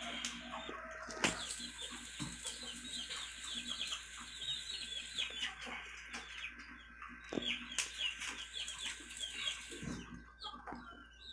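Birds chirping in quick, repeated short falling calls that thin out near the end. A few sharp pops come from pork grilling over a charcoal clay stove.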